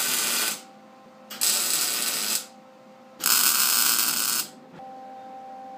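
Arc welding on steel in three short bursts of about a second each, separated by brief pauses, with a faint steady hum in the gaps.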